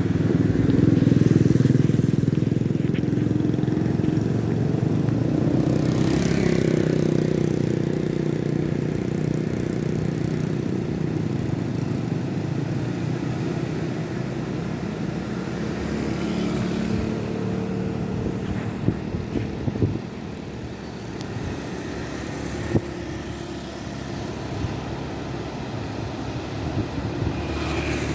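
Engines of small fishing boats running, several steady engine notes at once, loudest about a second or two in and slowly easing off, with a few short knocks near the end.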